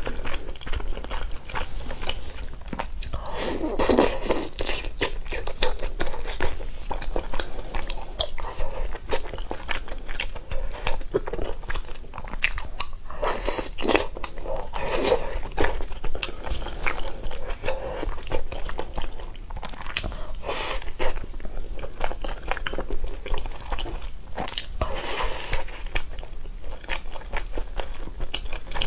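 Close-miked eating sounds: biting into and chewing pieces of food from a spicy stew, with wet mouth clicks throughout and several louder bites.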